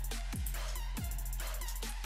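Background electronic music with a steady beat of deep kick drums over a bass drone.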